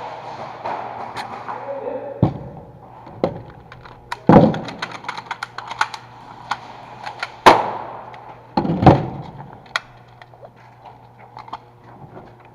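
Airsoft guns firing: scattered sharp cracks and clicks at irregular spacing, with four louder shots standing out. The first two seconds hold a softer rustling.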